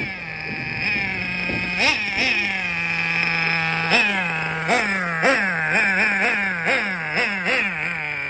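Novarossi 2.5 nitro engine of a Losi LST RC monster truck idling with a high, buzzing note, blipped up in short throttle stabs that come quicker and more often in the second half. A sharp rev rise comes right at the end as it pulls away.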